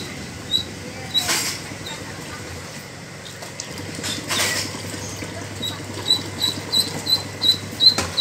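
Duckling peeping in short, high chirps about three times a second, more steadily in the second half. Water splashes briefly in a plastic bucket, once near the start and again about four seconds in as a basin of water is tipped in.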